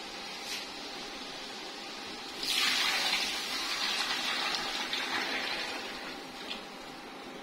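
Thin besan (gram-flour) batter poured into a cooking pot of masala, a gushing pour that starts about two and a half seconds in and tapers off over about three and a half seconds.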